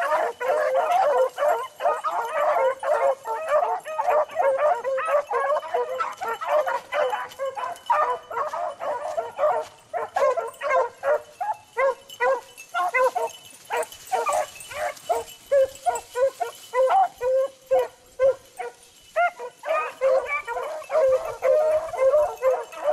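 A pack of beagles baying and barking in full cry while running a rabbit, many voices overlapping. The calls thin out in the middle and fill back in near the end.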